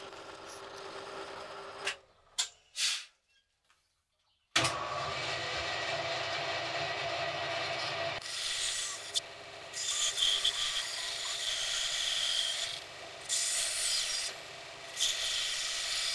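Band saw running with a steady motor hum, its blade cutting through a wooden block in four passes, each cut a hiss lasting one to three seconds. Before it, a drill press runs for about two seconds and then stops.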